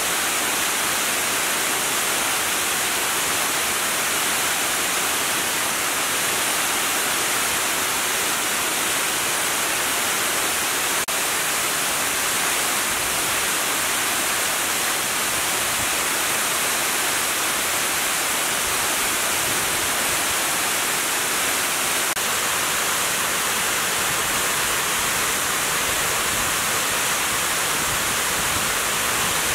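Heavy water cascading down a dam's concrete spillway: a steady, unbroken rush of falling water.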